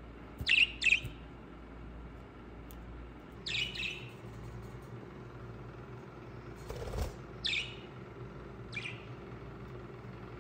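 Pet birds chirping: a few short, sharp calls, a quick pair at first, then single calls spaced a few seconds apart. A brief rustling noise comes just before the last two calls.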